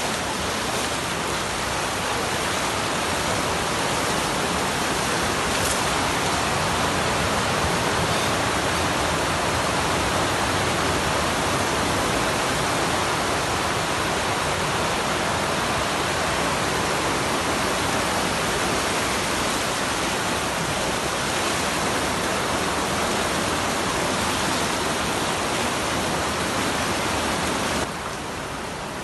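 Steady rushing hiss of water, even and unbroken with no distinct events, dropping a little in level shortly before the end.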